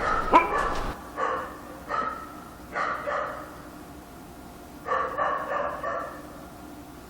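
A dog barking at night: single barks about a second apart in the first three seconds, a quick run of barks around five seconds in, then a pause.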